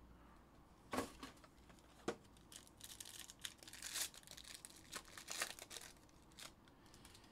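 Foil wrapper of a Panini Court Kings trading-card pack being handled and torn open. Faint, irregular crinkling and tearing crackles start about a second in and die away shortly before the end.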